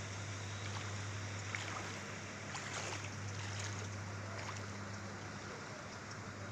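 Steady outdoor background noise with a constant low hum and a few faint clicks.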